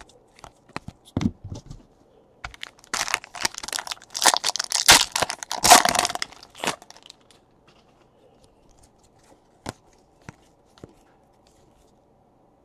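Foil trading-card pack wrapper being torn open and crinkled: a dense crackling stretch of about four seconds starting around two and a half seconds in. Light clicks and taps of the cards being handled come before and after it.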